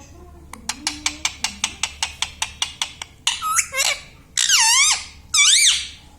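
A rapid run of sharp clicks, about six a second, then three loud screechy calls from a ringneck parakeet, each sweeping up and down in pitch.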